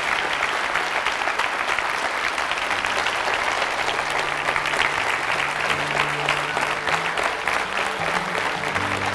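Large audience applauding steadily, many hands clapping together. Music with low held notes comes in underneath about a third of the way through.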